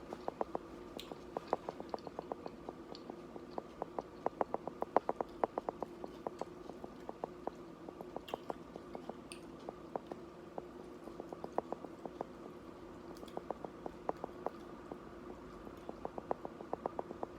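Close-miked chewing of crunchy nacho tortilla chips, crisp crunches coming in quick runs with short pauses between.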